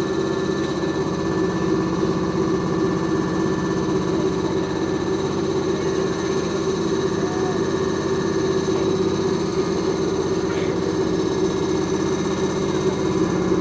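Keisei 3400 series electric train standing still, heard from inside the passenger car: a steady hum with several held tones from its onboard equipment.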